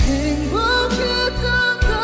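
A male singer belting a Korean pop ballad over a karaoke backing track; his voice rises into a held note about half a second in.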